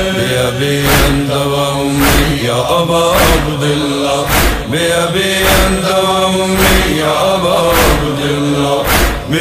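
Male voices chanting a noha lament in long, held lines over a heavy, steady beat that falls about once a second.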